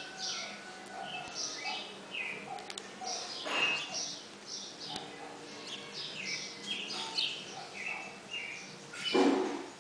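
Birds chirping busily in a rapid run of short, high calls, with two louder, fuller sounds, one about three and a half seconds in and one about nine seconds in.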